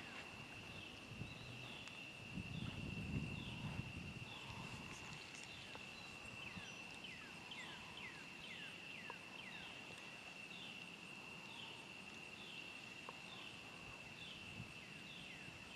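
Quiet outdoor animal chorus: a steady high-pitched whine with a long run of short falling chirps repeating a little under twice a second. A brief low rumble comes about three seconds in.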